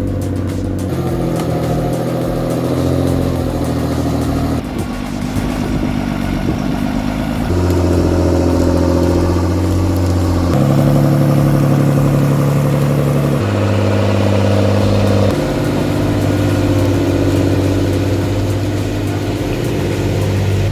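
Background music of sustained chords that change every two to three seconds.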